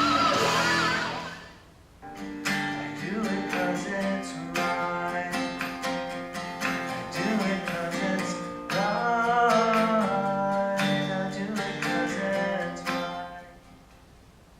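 Jawbone Jambox Bluetooth speaker playing music test clips. One clip fades out in the first two seconds. The next, a song with plucked guitar and singing, starts about two seconds in and fades out near the end.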